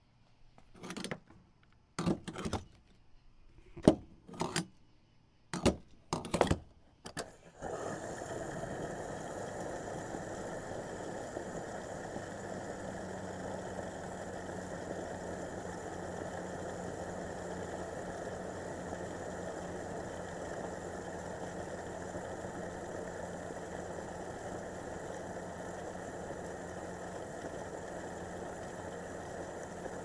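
Gas pump fill-up: a string of short clicks and clunks, then about eight seconds in a steady rushing hum starts and holds as the pump runs and fuel flows. A low steady hum joins it a few seconds later.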